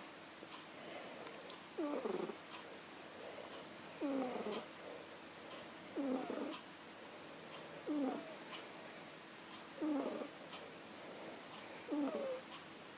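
Sleeping kitten snoring: a short snore sliding down in pitch about every two seconds, six in all, with fainter breaths between them. A very loud snore for such a little kitten.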